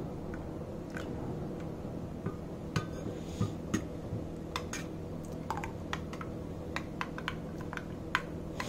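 Metal spoon stirring thick batter in a glass bowl, clinking against the glass in short, irregular clicks over a steady low hum.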